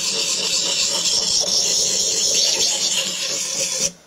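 Steel knife blade ground back and forth on the oiled coarse side of a whetstone, a steady scraping that stops suddenly near the end as the blade comes off the stone. The dulled edge is being re-ground to restore its angle.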